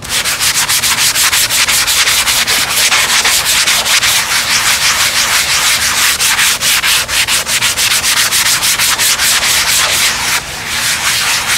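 80-grit sanding block rubbed by hand over a spackled model-airplane wing, scratching in rapid back-and-forth strokes, with a brief let-up about ten seconds in.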